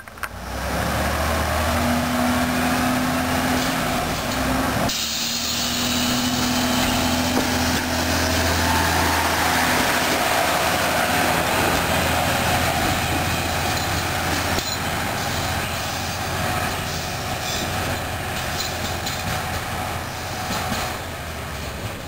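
Diesel engine of an MTW100 catenary-maintenance railcar running steadily as the vehicle pulls away along the track, fading a little in the second half as it draws off.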